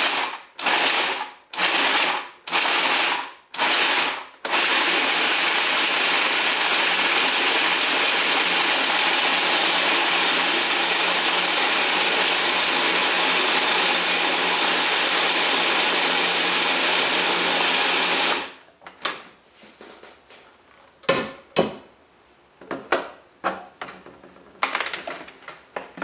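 Electric blade grinder chopping chunks of raw coconut meat into grated coconut. It is pulsed in four short bursts, then runs without a break for about fourteen seconds and stops. A few light knocks of handling follow.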